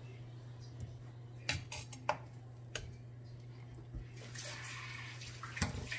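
Metal tongs clinking against a pan a few times as corn cobs are lifted out of simmering milk and butter. From about four seconds in, liquid drips and splashes back into the pan.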